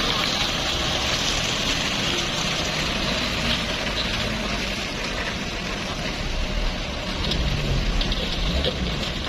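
Diesel engine of a loaded Mitsubishi Fuso Fighter truck labouring as it crawls through deep mud, under a steady hiss.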